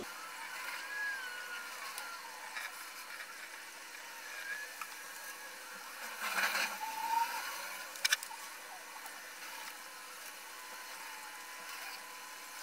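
A paintbrush stroking a liquid finish onto a steel anvil: soft brushing scrapes, louder for a moment about six seconds in, then a couple of sharp clicks about a second later.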